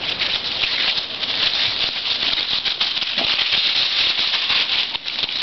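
Dry fallen leaves rustling and crunching underfoot, a dense, continuous crackle from feet and paws moving through a leaf-covered lawn.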